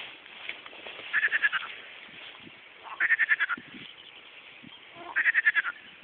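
Pond frogs calling: three pulsed croaks, each a quick run of about ten pulses lasting about half a second, coming roughly every two seconds over a faint background of other calling.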